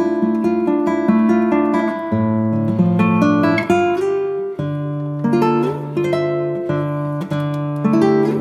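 Background music: acoustic guitar picking and strumming chords.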